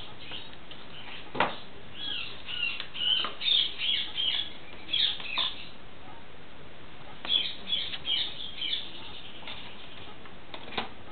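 Pet corella chattering in quick, short, high chirps, in two runs of a few seconds each. A sharp tap sounds about a second in and another near the end.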